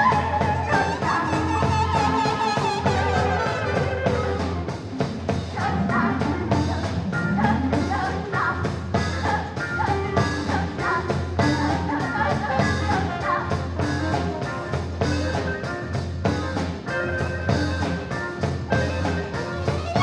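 Live improvised rock band music: dense steady percussion and bass under instruments and a singing voice.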